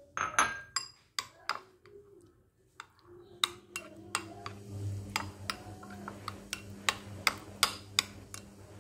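Metal spoon stirring thick yogurt in a ceramic bowl, clinking against the bowl in quick, irregular clicks. A steady low hum comes in about three seconds in.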